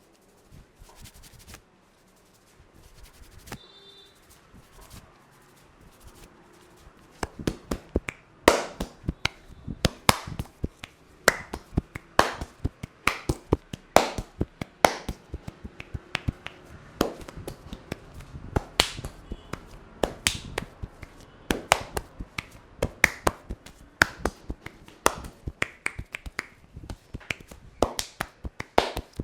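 Hands tapping and slapping on a head during an Indian head massage. A quick, uneven run of sharp clicks and slaps starts about seven seconds in, after a quieter stretch of faint, scattered clicks.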